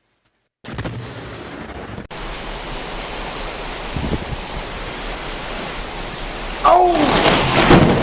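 Steady rain hiss, then a sudden loud thunderclap from a close lightning strike about two-thirds of the way through, at its loudest near the end.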